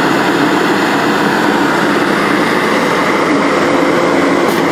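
Electric blower fan of an inflatable tube man running close by: a loud, steady rush of air with a low hum underneath.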